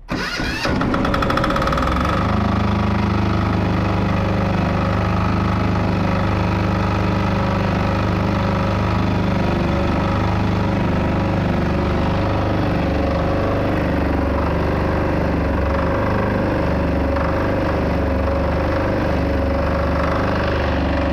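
FTD 7900 silent-type three-phase diesel generator set starting: its engine cranks and catches within about two seconds, then runs steadily.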